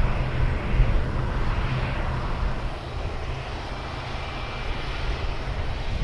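A New Holland CX8070 combine harvester cutting wheat, with a New Holland tractor running alongside, makes a steady engine drone under a noisy rush of machinery. It gets a little quieter about halfway through.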